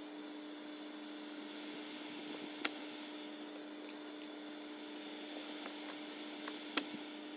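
Faint wet squishing of raw chicken cutlets being dredged by hand through beaten egg and flour in glass bowls, over a steady electrical hum. Two sharp clicks, one about a third of the way in and a louder one near the end.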